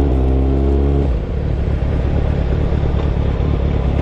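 A sport motorcycle's engine running at a steady note under the rider, which drops away about a second in as the throttle closes. After that only a low, noisy rumble is left.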